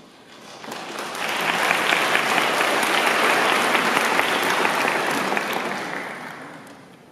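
Concert hall audience applauding to welcome the soloist: the clapping swells up within the first second or so, holds steady, then dies away near the end.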